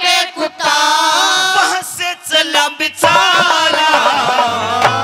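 A man singing a Haryanvi folk song into a microphone, drawing out long held notes, with musical accompaniment.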